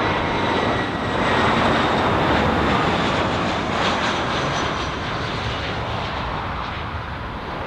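Jet airliner landing: a steady roar of engine and airframe noise that eases off from about five seconds in.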